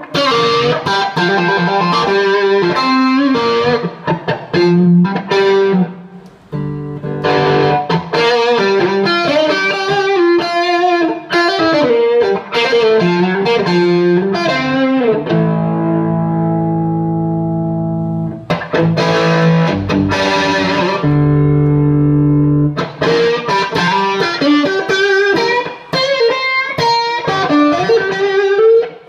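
Stratocaster-style electric guitar played through an overdrive pedal and a 3rd Power amp: melodic single-note lines, with two chords held and left to ring past the middle.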